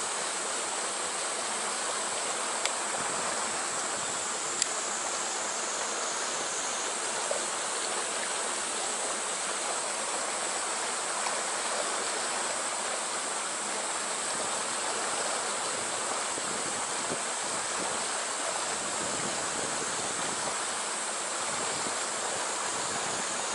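Stream water rushing steadily through a narrow rock channel, a continuous even rush with two faint ticks a few seconds in.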